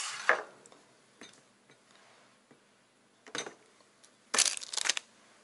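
A small glass drug vial set down on a tabletop with a sharp knock, followed by a few faint taps and, about four and a half seconds in, a short spell of rustling and clatter from objects being handled.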